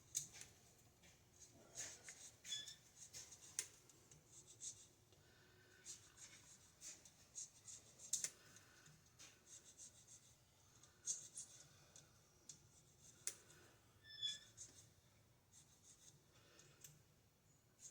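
Faint, irregular scraping strokes with a few sharp ticks: a thin metal tool scraping debris out of the grooves between the commutator bars of a starter armature.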